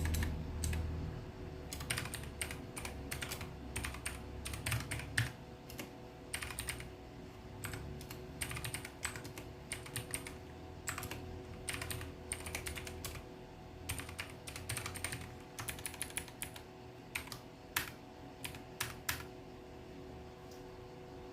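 Typing on a mechanical keyboard with blue switches, the clicky kind: irregular runs of sharp keystroke clicks that stop about two seconds before the end.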